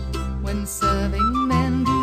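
Folk band music: a melody moving in short stepped notes over a steady bass note that shifts about one and a half seconds in.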